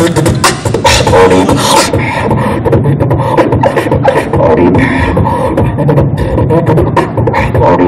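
Solo beatboxing into a handheld microphone, amplified through a PA speaker: fast, dense drum-like hits and clicks over continuous vocal tones. After about two seconds the hissy cymbal-like highs thin out while the lower hits carry on.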